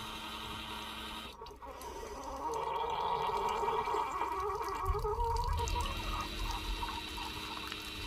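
Coffee maker brewing: water gurgling and pumping through the machine with a wavering hum, swelling from about two seconds in and easing off past the middle, with a low rumble near the end. The owner says the machine needs descaling and is struggling.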